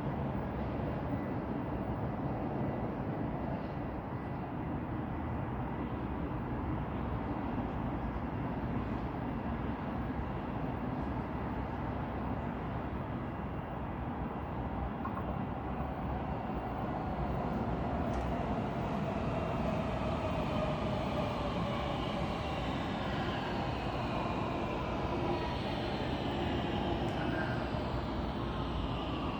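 Steady rumble of passing traffic. In the second half, a passing vehicle's whining tones slide slowly down in pitch.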